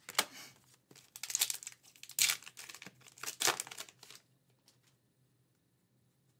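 Foil wrapper of an Upper Deck Artifacts hockey card pack crinkling in several quick rustles as the pack is opened and the cards are slid out, stopping about four seconds in.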